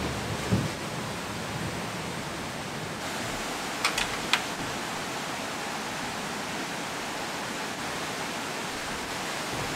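Steady hiss of rain falling, with two sharp knocks about four seconds in as shoes are set down on a wooden deck.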